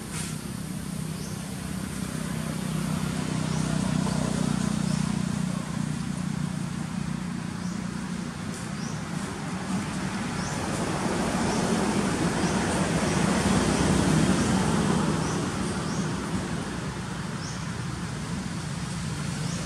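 Low engine rumble of passing road traffic, swelling and fading twice, with short high chirps scattered through.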